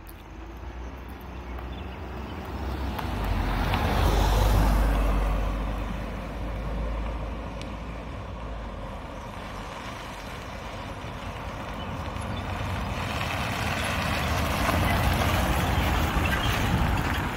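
Two road vehicles driving past close by, tyre and engine noise swelling and fading: a car passes about four seconds in, then a Ford E-Series van towing a tandem-axle enclosed cargo trailer rumbles past near the end.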